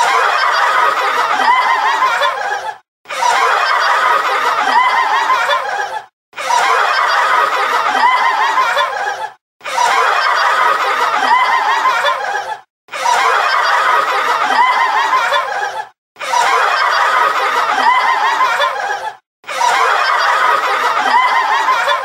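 Laughter sound effect: the same clip of laughing, about three seconds long, played over and over, each time cut off by a brief silence.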